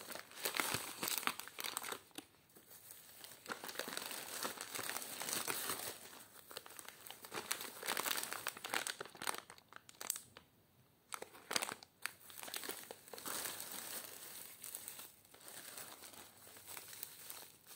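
Plastic mailer bag and plastic wrapping crinkling and rustling as hands rummage through a parcel, in uneven stretches with brief lulls about ten seconds in and again a little later.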